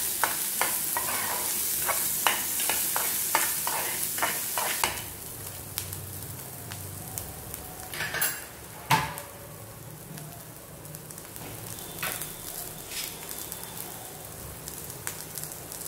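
Chopped onions and green chillies sizzling in hot oil in a metal pan, with a spoon scraping and clicking against the pan as it stirs for the first five seconds or so. After that the stirring stops and a quieter sizzle goes on, with a couple of knocks around eight to nine seconds in.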